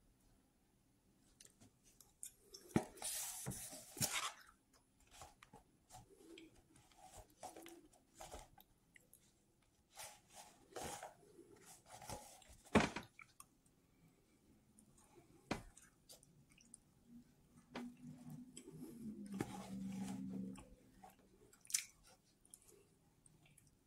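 A man eating up close: wet chewing and mouth noises with scattered clicks of a fork against a paper plate. A low hum comes in for about two seconds near the end.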